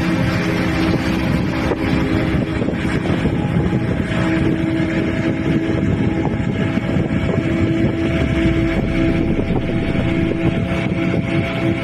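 An engine running steadily at a constant pitch, mixed with rushing wind noise on the microphone.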